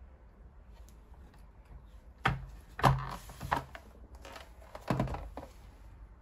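Sharp knocks and clatter of small hard parts being handled on a work surface: four loud strikes with brief scraping between them, a little over two seconds in to about five seconds in.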